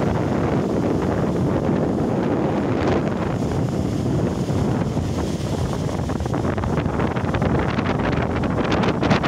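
Strong storm wind buffeting the microphone, over surf breaking and washing up the sand.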